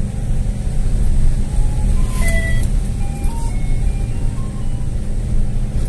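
Car engine and road rumble heard inside the cabin as the car climbs a steep narrow road. From about two seconds in, a short tinkling melody of a few single notes plays over it.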